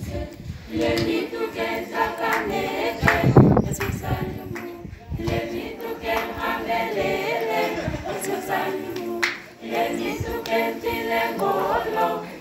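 Youth choir singing a cappella, several voices together with no instruments.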